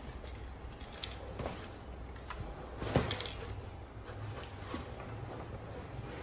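Quiet handling noise of a rifle being laid into a padded fabric rifle bag: soft rustling of the padding and a few light knocks, the most distinct about three seconds in.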